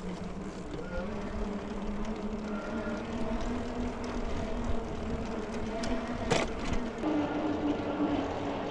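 Electric bike under way: the motor whines steadily over tyre and rattle noise, rising slightly in pitch and stepping higher about seven seconds in. A single sharp knock about six seconds in.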